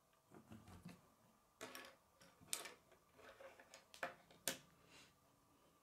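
K'nex plastic rods and connectors clicking and knocking as they are handled and pushed together, a scattered series of faint clicks, the two sharpest about halfway through and near the end.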